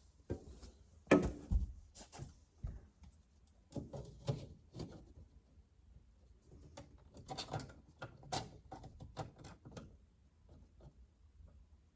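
Irregular knocks, taps and clicks from a smoke alarm's plastic mounting bracket and screws being handled and fitted, with the loudest knock about a second in.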